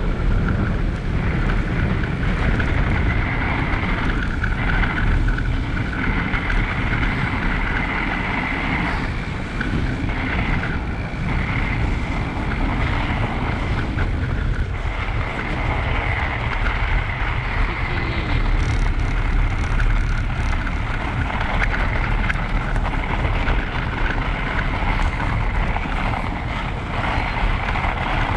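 Electric mountain bike ridden over packed snow: a steady rush of wind on the microphone and the tyres rolling on snow, with a steady high whine from the motor running throughout.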